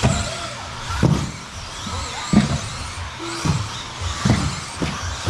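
Electric 1/10-scale RC off-road buggies racing on a carpet track: motor whine and tyre noise, with a thump about once a second.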